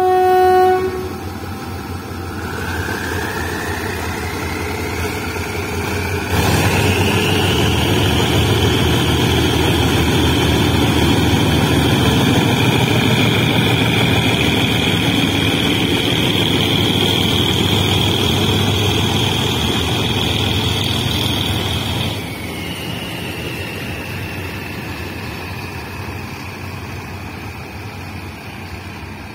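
A diesel locomotive's horn cuts off just after the start. The engine then powers up with a whine that rises over several seconds, runs loud and steady, and drops back about 22 seconds in to a quieter continuing drone.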